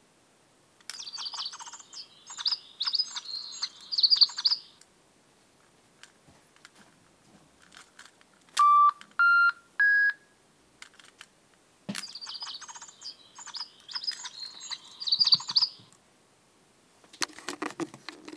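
Electronic interactive toy bird playing chirping birdsong in two runs of about four seconds each, with three short electronic beeps between them, each a step higher than the last. Handling rustle near the end.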